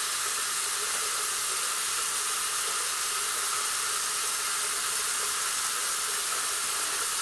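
Bathroom sink faucet running steadily into the basin and down the drain, an even hiss of water that does not change.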